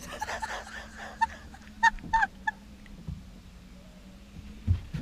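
Birds honking: a jumble of overlapping calls, then a few short, sharp single honks about two seconds in. A low thump comes near the end.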